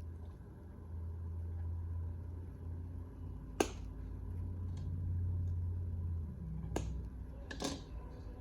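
Three sharp clicks a few seconds apart, the first the loudest: side cutters snipping the battery lead wires shorter to fit the connector. A steady low hum runs underneath.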